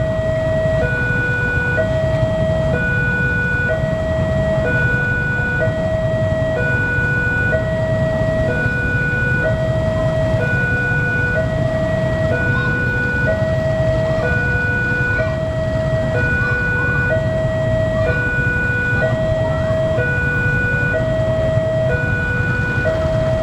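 Level-crossing warning alarm sounding continuously: two electronic tones alternating high–low, each held a little under a second, as a train approaches the crossing.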